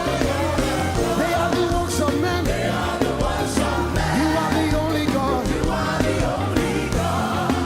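Live gospel praise music: a full band with a steady drum and bass groove under a sliding, pitched melody line.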